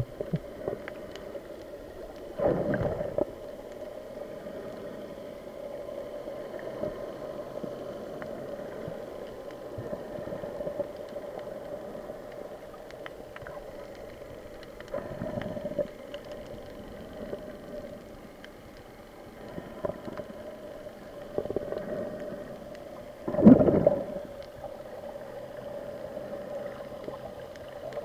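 Muffled underwater sound picked up by an action camera in its waterproof housing: a steady dull hum with a few louder swells of water noise, the loudest near the end.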